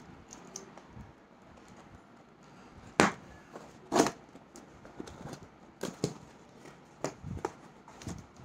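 A cardboard shipping box being opened by hand, a key dragged through its packing tape: two loud, sharp rips about a second apart, then quieter rustles and knocks of the cardboard flaps being handled.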